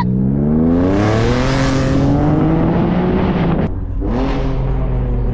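Car engine accelerating hard, its pitch rising steadily, with a brief drop about three and a half seconds in as the gear changes, then pulling up again.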